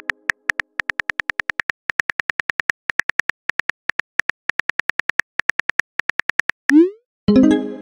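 Simulated phone-keyboard typing clicks from a texting-story app, about eight quick ticks a second with brief pauses, as a message is typed out. Near the end a short rising swoosh as the message sends, then a loud pitched pop-like tone that rings and fades.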